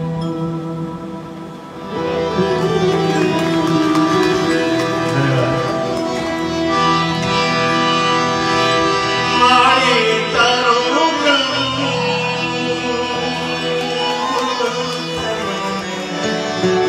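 A man singing a slow, ornamented melody to his own harmonium accompaniment, in a live Indian folk-devotional style. The music swells about two seconds in, and the voice winds through a long ornamented run near the middle.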